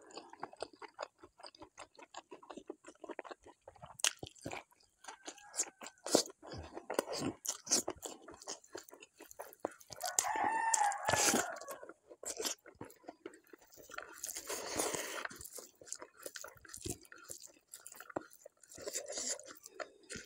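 Close-up chewing and wet mouth smacks of someone eating rice and curry by hand, with fingers squishing food on the plate. About ten seconds in, a rooster crows once in the background.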